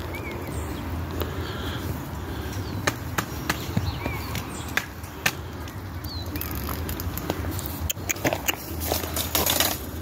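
Goats grazing close up: irregular clicks and snaps of grass being torn and chewed, with a few short chirps and a steady low rumble behind.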